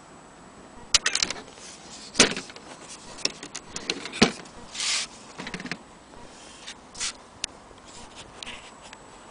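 An old wall clock being handled: irregular sharp clicks and knocks, with a short scrape about five seconds in.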